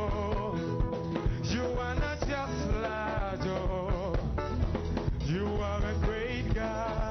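Live gospel worship music from a church band, with a steady beat, bass and wavering sung or lead melody lines.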